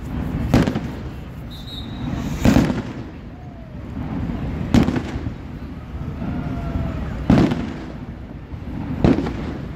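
Fireworks shells bursting in the air: five sharp bangs about two seconds apart, each dying away over a second or so.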